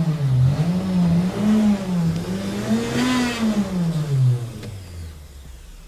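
Nissan Frontier's 4.0-litre V6 revving up and falling back about three times, with a high whine at the top of the highest rev, then dropping to a lower steady run about four and a half seconds in. The engine revs without the truck pulling, a sign of the failed torque converter the owner blames.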